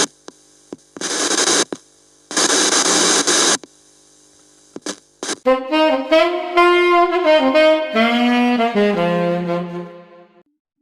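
Two short bursts of noise, then a melodic phrase on a saxophone-like wind instrument, its notes stepping downward and fading out near the end.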